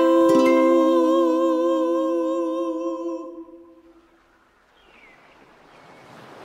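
A voice holds the song's last note as a hum with a slight vibrato, fading out about three seconds in. A faint, even hiss then rises.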